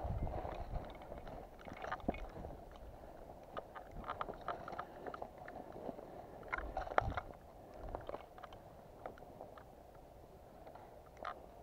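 Irregular crunching footsteps and rustling of clothing and gear as a player moves on foot, fading quieter in the second half.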